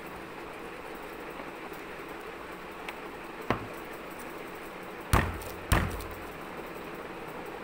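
Three sharp knocks on a tabletop over a steady background hum: a light one about three and a half seconds in, then two louder ones about half a second apart.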